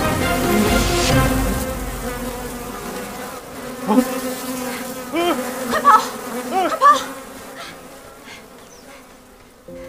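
Swarm of hornets buzzing, a dense steady drone of many insects that fades toward the end. A few short swooping sounds rise and fall over it between about four and seven seconds in.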